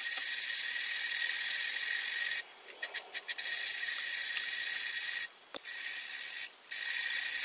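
Hand file drawn across a steel knife blade, heard as a steady high hiss that breaks off abruptly three times: about two and a half seconds in, after five seconds, and near six and a half.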